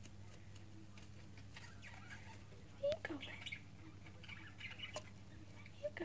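Budgerigar chick calling softly: a short call falling in pitch about three seconds in, a shorter one near the end, and faint chirps in between. A steady low hum sits underneath.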